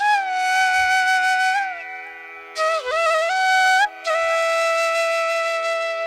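Background music: a flute playing long held notes that slide from pitch to pitch, in phrases broken by short pauses, over a steady drone.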